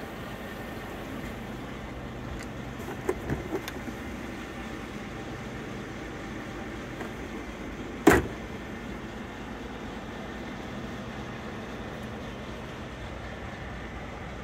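An overhead storage locker in a Scania truck cab is opened, with one sharp clunk of its flap about eight seconds in. A few light clicks come about three seconds in, over a steady low hum in the cab.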